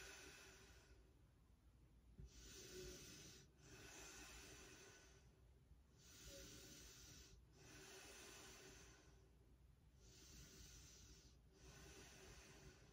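A person's slow, faint breathing. Soft, even in- and out-breaths follow one another, each lasting about one and a half to two seconds.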